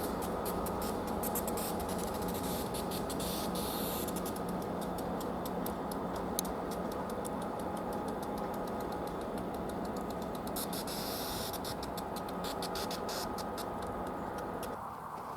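Diesel-hauled passenger train running past: a steady rumble with fast, irregular clicking of wheels over the rails, dropping away sharply near the end.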